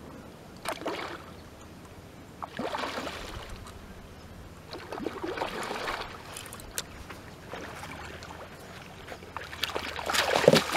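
A large hooked carp thrashing and splashing at the water's surface in several separate bursts. The last and loudest burst comes near the end, as the fish is pulled splashing into the shallows.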